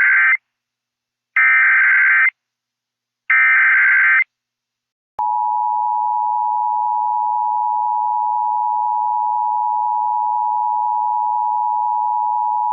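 Emergency Alert System test signal. The tail of one SAME header data burst is followed by two more bursts of digital data noise, each about a second long. About five seconds in, the steady two-tone attention signal starts and holds.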